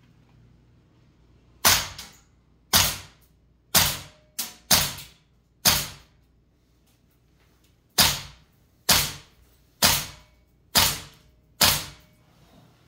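Marksman K1A airsoft rifle fired eleven times in single shots, about one a second with a quick pair in the middle; each shot is a sharp crack with a short ringing tail.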